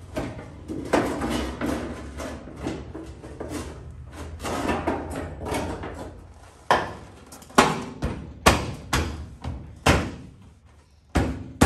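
Sheet-metal door skin being fitted onto a 1970 AAR 'Cuda door: scraping and light knocking as the panel is pushed into place, then, from about two-thirds of the way in, a run of about eight sharp metal knocks under a second apart, each with a short ring.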